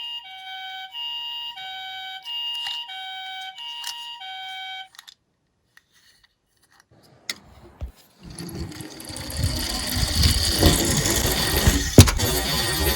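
Electronic two-tone siren from a toy emergency-vehicle minicar, alternating between a higher and a lower tone about every 0.6 s, stopping about five seconds in. After a short silence, a rumbling clatter of a toy car rolling down a slope builds up, with a couple of sharp clicks near the end.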